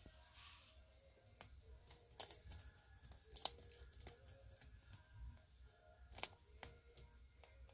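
Faint crackles and a few sharp snaps of dry woven grass as a rabbit nibbles and tugs at its grass bed.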